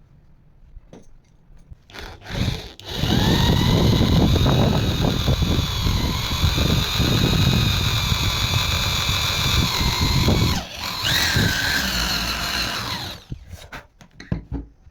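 Electric power tool motor running under load with a steady whine for about seven seconds, the pitch dipping briefly partway. It stops, then runs again for about two seconds with its pitch rising and falling. A few knocks come before and after.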